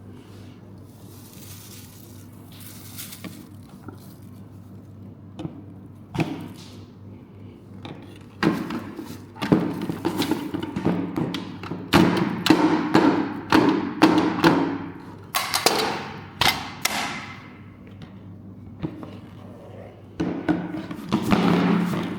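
Robot vacuum running with a steady low motor hum, with clusters of knocks and thumps from about eight seconds in and again near the end.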